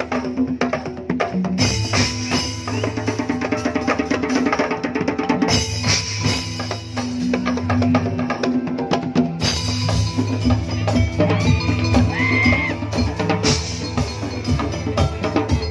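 Live patrol percussion ensemble playing a dense, driving rhythm on hand drums, drum kit and large barrel drums, with wood-block clacks and a keyboard carrying sustained notes over it.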